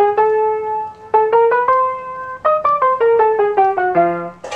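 Background piano music: a slow melody of single notes, some held for about a second.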